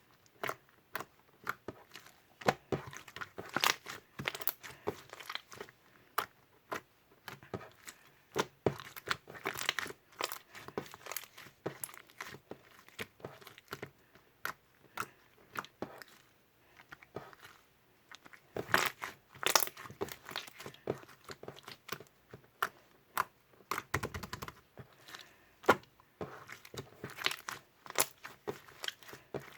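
Green mint pompom slime being squished and stretched by hand, giving irregular crackles and sharp pops, with a few short pauses.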